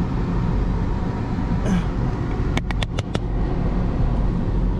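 Buick Rainier SUV on the move, heard from inside the cabin: a steady low rumble of engine and road noise. A quick run of about five sharp clicks comes a little after halfway.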